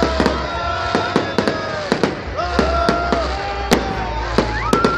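Aerial fireworks bursting overhead: a rapid, irregular string of sharp bangs and crackles. Several held pitched tones, each about a second long, sound over the bangs.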